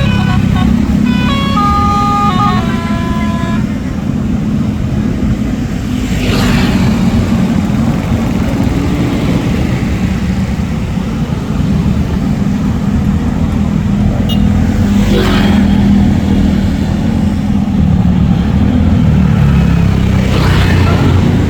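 A tour bus's basuri musical horn (telolet) plays a short run of notes for the first few seconds. Then a bus engine runs loud and low, with three short bursts of hiss.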